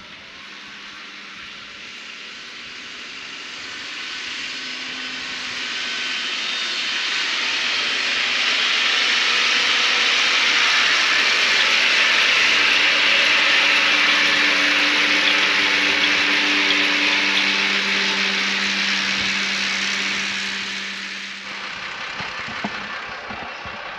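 Tractor and round baler working, a steady engine drone under a loud hiss of machinery, growing louder over the first several seconds and dropping away about 21 seconds in.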